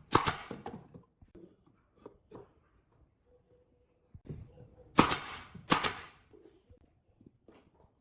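Woodworking hand-tool work on wood: a loud short stroke at the start, then a pair of loud short strokes about five and six seconds in, with faint knocks and taps between.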